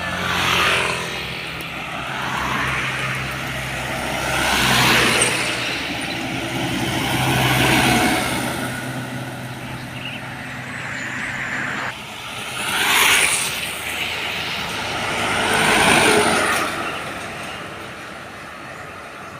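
Road traffic passing close by: about five vehicles, trucks among them, rush past one after another, each swelling and fading over a second or two over a low diesel engine drone.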